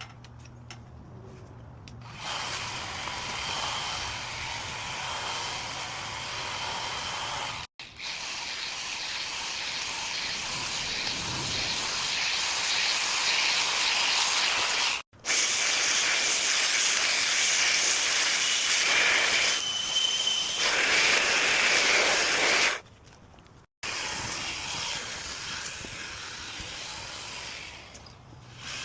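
Powered landscaping tool running: a steady noise with a faint high whine, cut off abruptly several times where the clips are joined.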